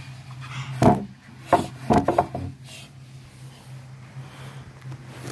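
Several sharp knocks and rubbing against wooden furniture, one about a second in and a quick cluster around two seconds, over a steady low hum.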